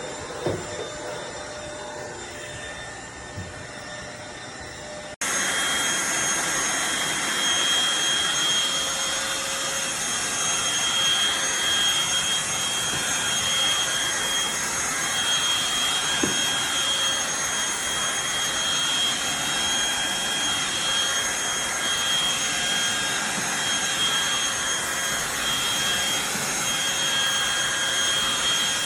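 Eureka corded stick vacuum running steadily with a high-pitched whine. About five seconds in it cuts off for an instant and comes back clearly louder.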